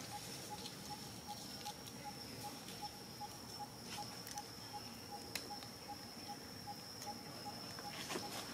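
Faint outdoor ambience: a steady high-pitched insect whine, with a soft note repeating about three times a second and scattered small clicks and taps.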